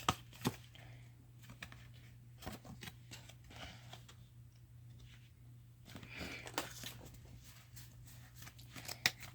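Pokémon trading cards and their foil booster-pack wrapper being handled: faint crinkling and rustling with a few sharp little clicks of cards being flipped and set down.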